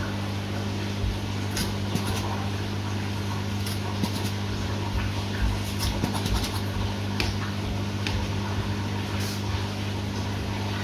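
A steady low hum, with scattered small clicks and rustles of hands handling a newborn puppy on a paper underpad and working metal hemostat clamps.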